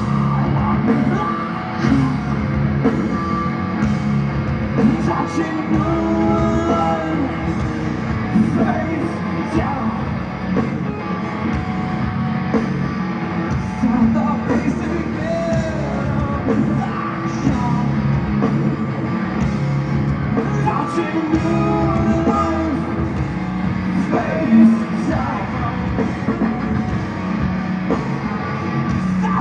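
Live hard rock band playing, heard from the audience: electric guitars, bass and drums with a singer's sung lines over them.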